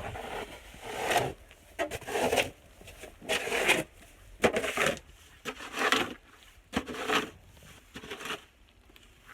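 Thick, heavy snow crunching in a regular series, about one crunch a second, fading out near the end.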